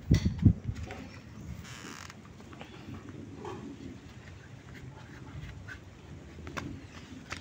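Toddler's plastic clogs scuffing and tapping on concrete as she steps into them and walks, with a few louder knocks near the start and light scattered taps after.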